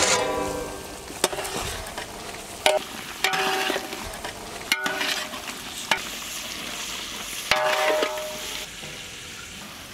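A spatula stirs fried chicken pieces through thick sauce in a large metal pot over a low sizzle. The spatula knocks against the pot about six times, and each knock rings briefly.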